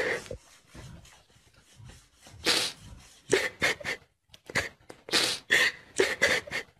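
A dog breathing in harsh, wheezing gasps: fainter for the first couple of seconds, then louder short breaths in quick runs with pauses between them.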